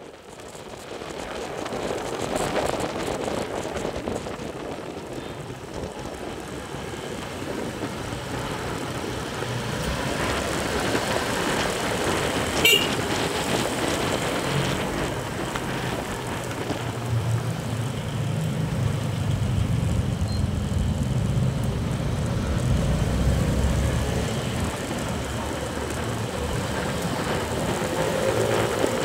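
Road traffic noise beside a busy city road: car and motorcycle engines and tyres, with the low engine rumble growing louder in the second half. One sharp high click about thirteen seconds in.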